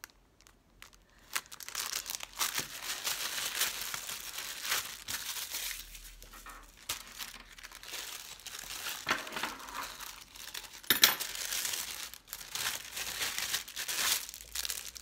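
Thin plastic packaging bags crinkling and rustling as they are handled and opened, with a sharp click about eleven seconds in.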